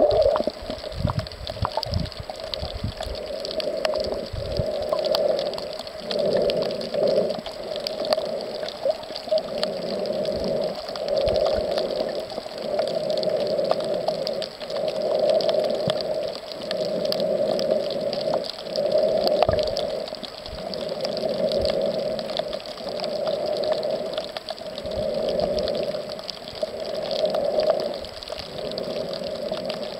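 Muffled underwater water noise picked up by a camera held beneath the surface, swelling and fading in a regular rhythm about every two seconds. There are a few low knocks in the first few seconds.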